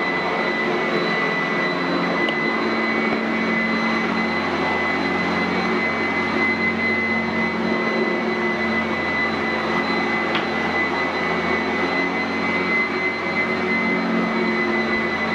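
Sanitaire SC899F commercial upright vacuum running steadily over carpet: a constant rush of air with a steady high whine from its motor.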